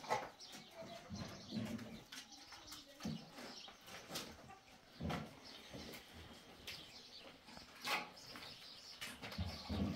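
Pigeons or doves cooing softly, with a few short scraping strokes of a plasterer's trowel on the wall.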